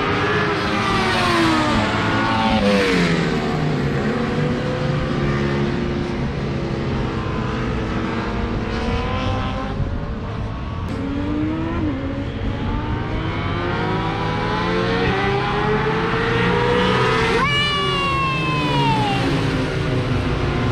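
KTM RC8's V-twin engine heard on board at speed, its revs climbing and dropping again and again through gear changes, over a steady rushing noise. Near the end the revs rise sharply, then fall away in a long glide.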